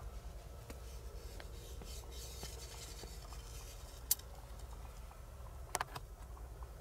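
Faint rubbing and rustling of gear being handled inside a hunting ground blind, with a sharp click about four seconds in and a quick double click near six seconds.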